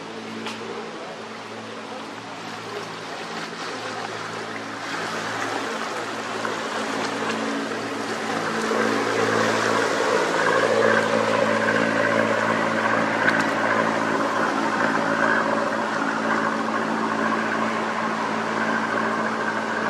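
A motor cruiser's engine running steadily, growing louder as the boat comes close by. From about halfway the rushing wash of its hull through the water joins in.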